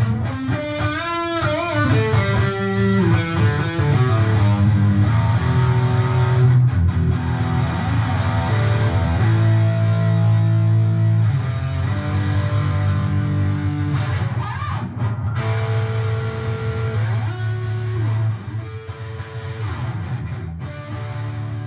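Outro music: electric guitar rock music with bending lead notes over a steady bass, easing down a little near the end.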